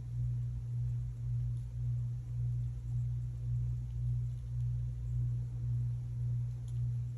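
Low-pitched hum coming through a wall, steady in pitch and wavering in loudness about twice a second, like a vibrating machine.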